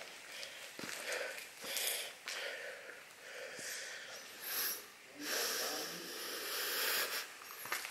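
Footsteps scuffing and crunching across a gritty, debris-strewn concrete floor, in a series of soft noisy bursts, with breathing close to the microphone.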